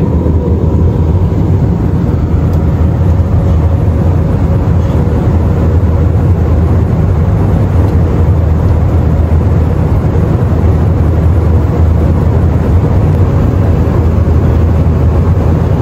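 Steady low drone inside an Airbus A320-232's passenger cabin: its IAE V2500 turbofan engines and the rush of air past the fuselage, with a faint steady hum over it.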